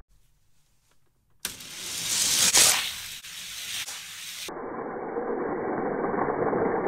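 Die-cast toy cars rolling down a plastic race track. After about a second of near silence, a rushing hiss swells and fades over about three seconds, followed by a duller, steady rolling rumble that slowly grows as the cars near the finish.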